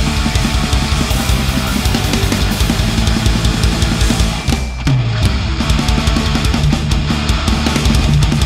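Aggressive heavy rock band playback whose drums come from the Drumforge Savior sampler's punk preset, 'Tight, Bright and Clicky': raw, bright kit with a lot of pop on the snare and a clicky kick. The band stops briefly about four and a half seconds in, then comes back in.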